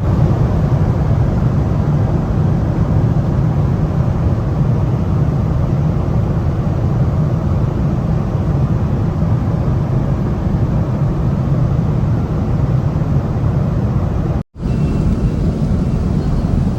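Steady rumble of a jet airliner's cabin in flight, engine and airflow noise heavy in the low end. It breaks off for an instant near the end and resumes unchanged.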